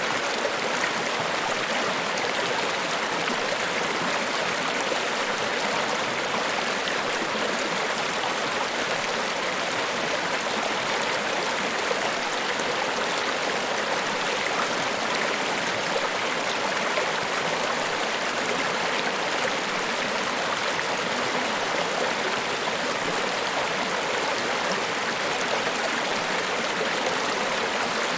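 Niagara Falls: a steady, unbroken rush of falling water, mostly hiss with little deep rumble.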